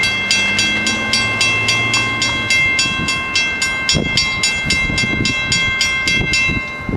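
Railroad grade-crossing warning bell ringing in fast, even strokes, about four a second, while the gate arm lowers. It stops suddenly near the end, as the gates come down. Low gusts of wind on the microphone in the second half.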